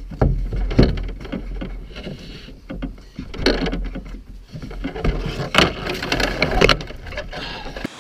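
Irregular knocks and bumps of a paddle and gear against a canoe's hull and gunwales, picked up close through the boat, over a low rumble of handling.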